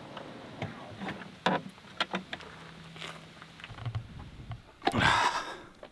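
Handling noise at the back of a camper van: a series of light knocks and clicks as things are moved in and out of its wooden drawer. About five seconds in comes a loud, brief rustle, the camera being handled up close.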